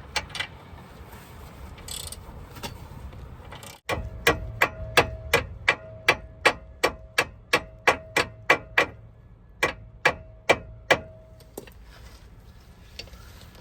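Sharp mechanical clicking, evenly spaced at about three clicks a second, starting suddenly about four seconds in and stopping after some seven seconds, with a faint steady tone under it.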